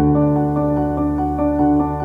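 Background music: a keyboard or piano melody of short notes over a sustained low bass tone.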